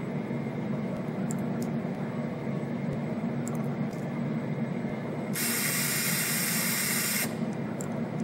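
CNC spring coiling machine running with a steady hum and faint light ticks while coiling very fine wire. A loud hiss lasts about two seconds, starting about five seconds in.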